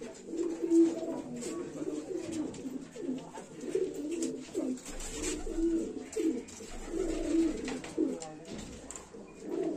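Several Madrasi high-flyer pigeons cooing in their loft, low overlapping coos repeating throughout.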